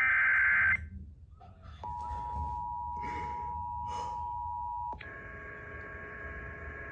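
The last of the Emergency Alert System end-of-message data bursts, a harsh digital warble cutting off under a second in; after a short pause the EAS two-tone attention signal sounds steadily for about three seconds, then gives way to a quieter, buzzier steady tone with many overtones.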